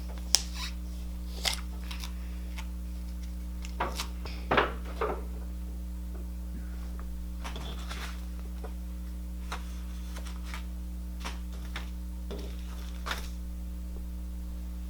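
Scattered light clicks and knocks of a plastic slime container being handled, over a steady low hum. The clicks are most frequent in the first five seconds, with a small cluster about four to five seconds in.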